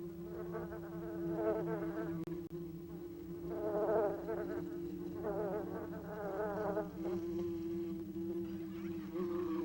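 Bees buzzing: a steady hum underneath, with louder wavering buzzes that swell up about one second in, around three and a half seconds in, and again around five seconds in.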